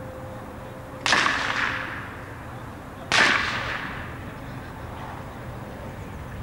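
Two blank-pistol shots about two seconds apart, each a sharp crack trailing off in an echo. They are fired during the heeling as the gunfire test of the dog's steadiness under gunshot.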